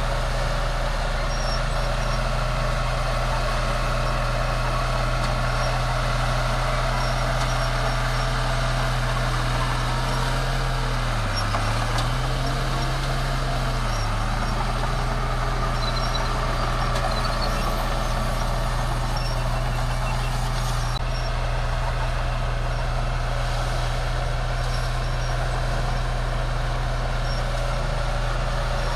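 Bulldozer's diesel engine running steadily at working revs, its low drone dipping briefly in pitch twice near the middle.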